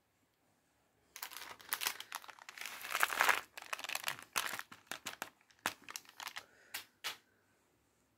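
A crinkly plastic snack packet being handled and emptied over a takeaway tray. The dense crinkling starts about a second in, then breaks into a few separate crackles that stop near the end.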